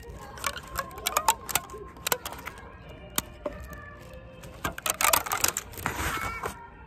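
Sharp irregular clicks, then a dense crinkling burst near the end, from food packaging and disposable chopsticks being handled. Faint background music underneath.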